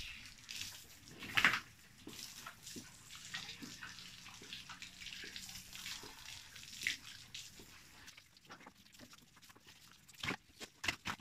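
Water from a garden hose splashing and spattering on the pen floor while pigs and their pen are washed down, with scattered sharp knocks. The loudest splash comes about a second and a half in, and a cluster of knocks comes near the end.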